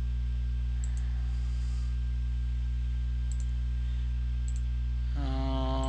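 Computer mouse double-clicking, three quick pairs of faint clicks, over a loud steady electrical hum. A voice starts near the end.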